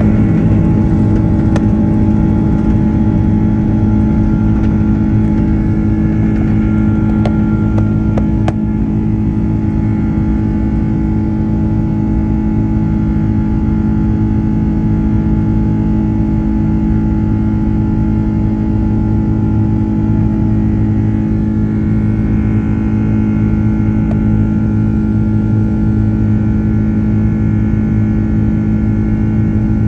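Airbus A330-300 jet engine running at takeoff thrust, heard from inside the cabin beside the engine: a loud, steady drone with several held tones through the takeoff roll and climb-out. A brief knock comes about eight and a half seconds in.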